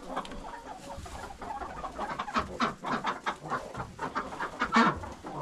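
A flock of chickens on their roosts, clucking and murmuring in many short, irregular calls, with one louder call near the end.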